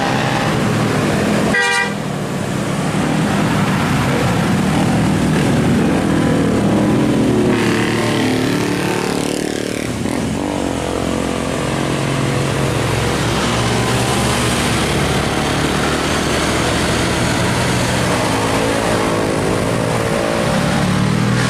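Indonesian bus 'telolet' multi-tone musical horns sounding in shifting tones, over bus engines and passing traffic.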